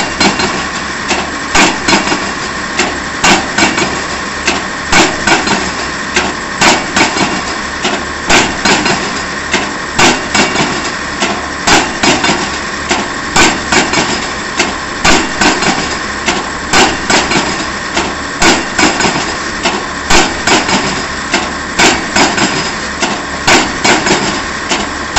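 Piling rig's hammer striking the top of a pile in a steady, even rhythm of heavy blows, driving the pile into the ground, over the rig's engine running steadily.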